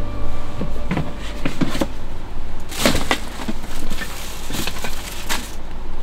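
Irregular knocks and clatter, a handful of sharp hits with the loudest about three seconds in, over a steady hiss.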